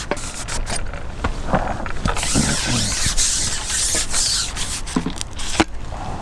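A fishing pole being shipped back and handled while a hooked fish is brought in: irregular rubbing and creaking with scattered clicks and knocks, and a couple of brief hissing rubs near the middle.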